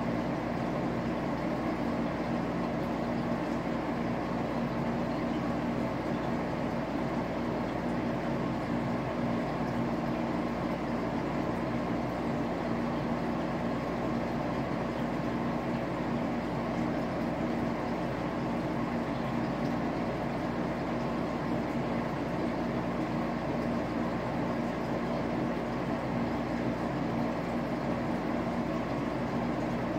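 Aquarium pump running, a steady mechanical hum with a constant low tone that does not change.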